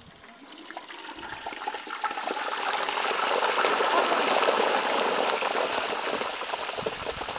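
Hot oil in a turkey fryer sizzling and bubbling with crackles as the fried turkey is lifted out on the hook, swelling to a loud rush midway and easing off again.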